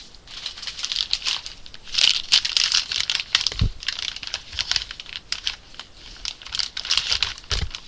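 Soft plastic baby-wipe pack crinkling and rustling in irregular bursts as it is handled and a wipe is pulled out, with two dull knocks about halfway through and near the end.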